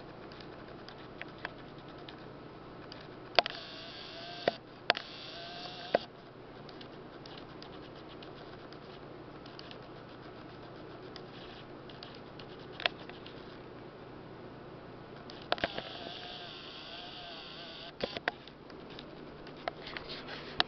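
Steady hum of an aquarium filter, broken by sharp clicks and knocks. Twice, about three seconds in and again about fifteen seconds in, a wavering, warbling sound lasts a couple of seconds.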